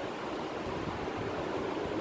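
Steady hiss of beef and onions cooking in a steel pot on a stove.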